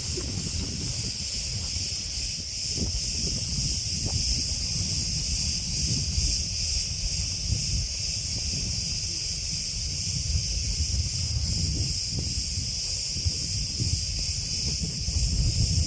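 Cicadas buzzing in a steady, continuous high-pitched drone, with gusts of wind rumbling on the microphone.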